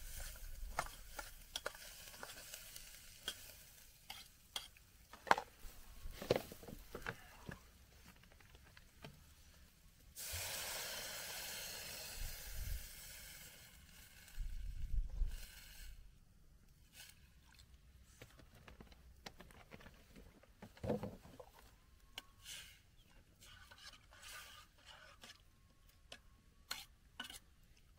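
Metal spoon stirring and knocking in a steel pot of vegetables frying on a camping gas stove, with many short clicks. About ten seconds in, water poured into the hot pot sets off a loud hiss that lasts about six seconds.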